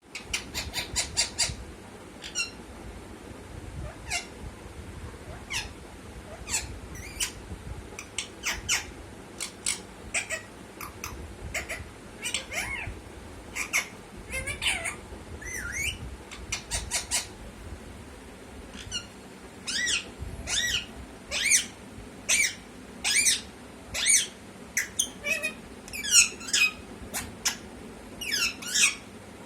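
Pet parrot making a long run of short squawks and chirps, some gliding up or down in pitch, coming faster and louder in the second half.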